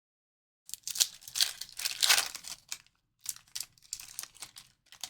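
A trading card pack's wrapper being torn open and crinkled, in two bouts of rapid crackling with a short pause between them.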